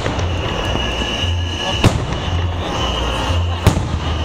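Fireworks salute going off: two sharp bangs, the first about two seconds in and the second near the end, over a continuous background of crackling and rumble.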